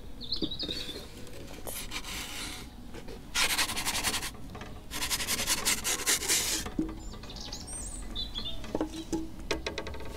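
Wooden pizza peel scraping across the oven's pizza stone as the pizza is slid off, heard as two scraping strokes about three and five seconds in, each lasting about a second and a half.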